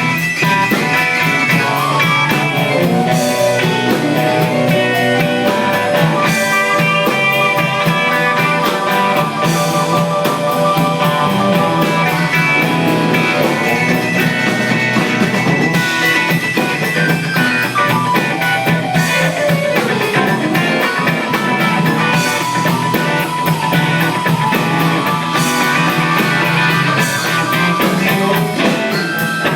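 Live blues band playing: guitar over bass and a drum kit, with cymbals keeping a steady beat.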